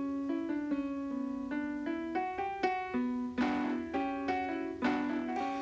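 Background piano music: a slow melody of held notes, one after another.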